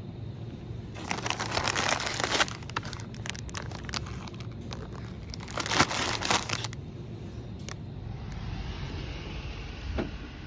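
Plastic packaging crinkling in two bursts, one about a second in and another around six seconds in.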